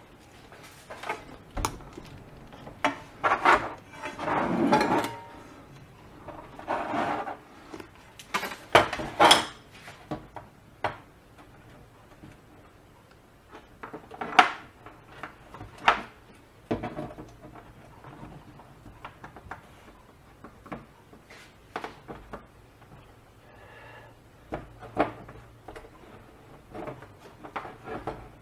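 Irregular light clicks, taps and rubbing from handling a small ceramic ozone plate, wire and soldering iron during hand soldering. The knocks come thick and fast in the first ten seconds, then more sparsely.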